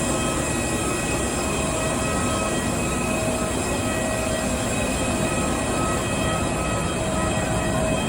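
Airport apron shuttle bus riding, heard from inside: a steady engine-and-road drone with several faint steady whining tones over it.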